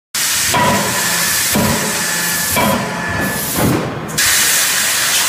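A 31.5 kJ CNC drop die forging hammer working a hot billet, heard as a loud, steady hiss with a heavier beat about once a second, each beat with a brief ring.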